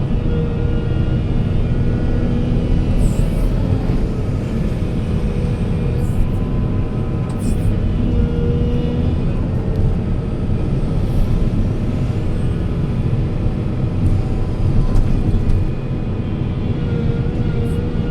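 Heavy diesel machinery engine running steadily under load, with short high hisses every few seconds.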